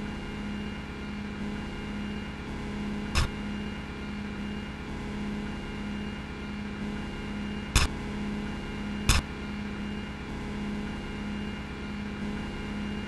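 A steady low electrical or mechanical hum, broken by three short sharp clicks: one about three seconds in, and two more later, a little over a second apart.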